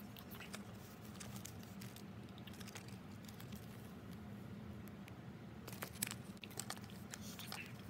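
Hands handling a small squeeze ball and its paper tag close to the microphone: faint rustling, crinkling and light taps, with one sharper click about six seconds in, over a low steady hum.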